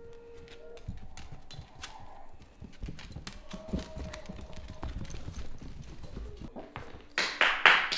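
Dogs' claws clicking and pattering at an uneven pace on a hard tile floor as a Dalmatian puppy and a boxer move about, with a few louder scuffling bursts near the end.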